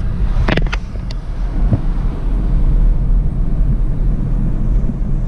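Road and engine noise heard inside a moving car's cabin at highway speed: a steady low rumble. A couple of sharp clicks come about half a second in.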